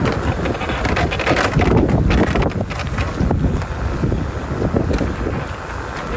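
Heavy wind noise on the microphone, loud and gusting unevenly.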